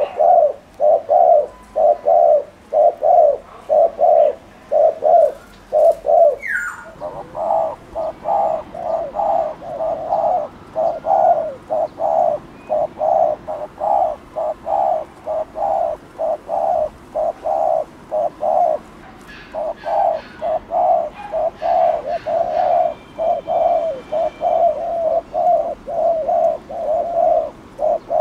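Spotted dove giving its bowing coo over and over: a steady run of short low coos, about one and a half a second, breaking off briefly about six seconds in and again about two-thirds of the way through.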